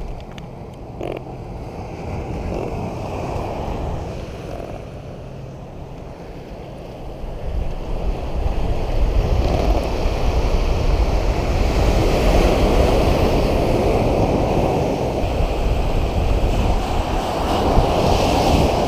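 Wind buffeting the microphone, with waves washing against a rocky shoreline; it grows louder from about eight seconds in.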